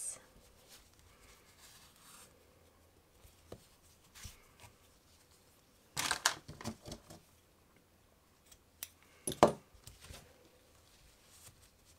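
Soft rustling of yarn being worked through stitches with a crochet hook. There is a short burst of louder rustles and scrapes about six seconds in, and one sharper, louder one at about nine and a half seconds.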